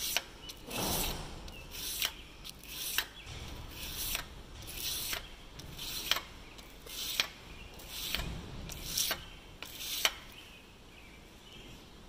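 Round baler twine knife being honed by hand on sandpaper: rasping back-and-forth strokes, about one a second, that stop about ten seconds in.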